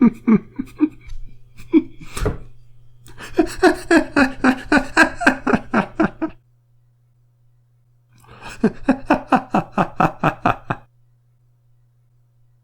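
People laughing in three bouts of quick ha-ha pulses, about four a second. A single sharp knock comes about two seconds in, and the laughter stops a couple of seconds before the end.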